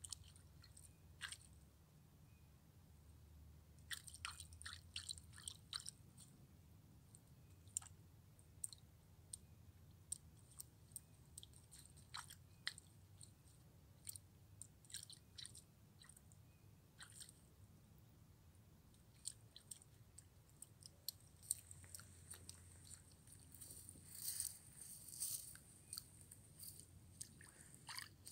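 A common raven pecking and crunching thin ice with its beak: scattered sharp cracks and crunches in short runs, densest near the end.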